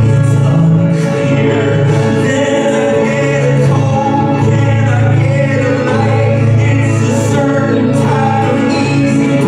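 Live band music with sung vocals over sustained low synth or bass notes, recorded by a phone in the crowd.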